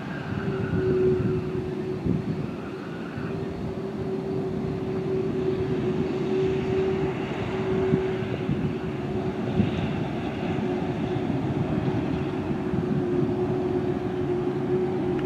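Jet engines of a Boeing 787 airliner running as it rolls down the runway after landing: a steady rumble with one steady hum held throughout.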